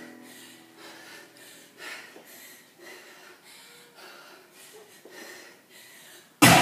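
A woman breathing hard and fast mid-workout, short forceful breaths about every half second. Loud music cuts in suddenly near the end.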